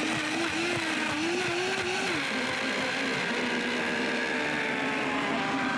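DASH Chef Series 1400-watt blender's 2.25-horsepower motor running on high, growling as it breaks down frozen strawberries and skim milk into sorbet. The pitch wavers for the first couple of seconds, then steadies and drifts slightly lower under the load. It is the normal sound of this blender working, not a fault.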